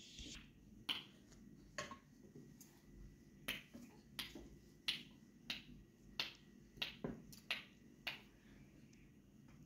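A series of about a dozen faint, sharp clicks, roughly one every two-thirds of a second, with a pair closer together a little past the middle.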